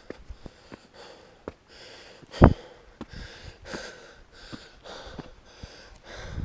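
A hiker breathing hard while walking, short puffs about twice a second, with light taps of footsteps on rock and one louder knock about two and a half seconds in.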